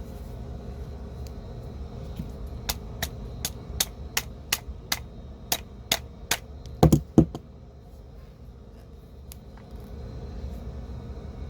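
Tapping on starter motor parts: about ten light, sharp taps roughly every half second, then a few heavier knocks a little after the middle, over a steady low hum.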